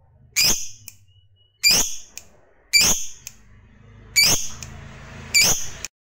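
Lovebird giving five loud, sharp, high calls, one about every second and a bit, each one short. The sound cuts off suddenly just before the end.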